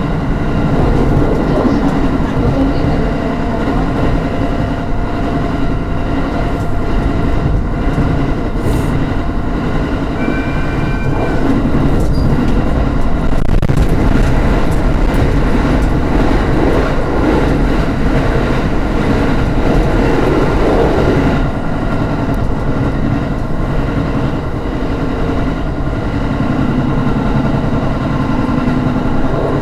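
Electric train running at speed, heard from inside the car: a steady rumble of wheels on rail, getting a little louder for several seconds while it passes through a short tunnel about twelve seconds in. A brief steady tone sounds about ten seconds in.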